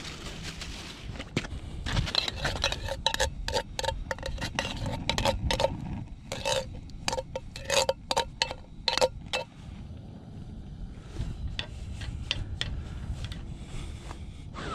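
Metal spoon scraping and tapping inside a tin soup can, a quick run of clinking strokes with a ringing note as the soup is scooped out into a pot. The clinks stop a little past halfway, leaving only fainter scattered ticks.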